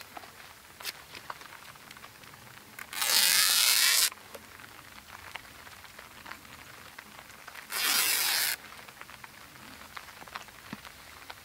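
Two loud ripping sounds, each about a second long and about four and a half seconds apart, between faint clicks and handling noise.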